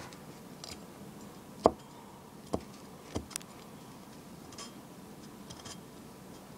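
A few light clicks and taps from small hard things being handled, the loudest about one and a half seconds in, with fainter ticks later.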